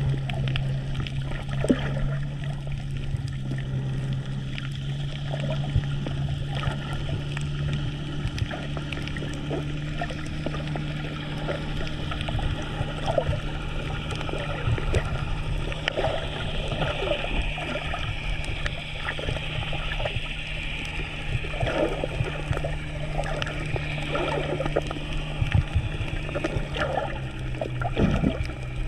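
Underwater sound on a coral reef picked up by a submerged camera: a steady low hum under a continuous haze of water noise, scattered with many short sharp clicks and crackles.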